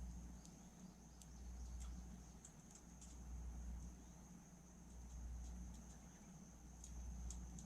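Faint steady high-pitched trill of crickets, with a few scattered soft clicks and a low rumble that slowly swells and fades.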